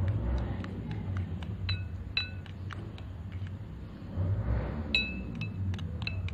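Metal fork clinking against a glass mixing bowl while stirring cake batter: irregular light taps, a few of them ringing briefly with a high glassy tone.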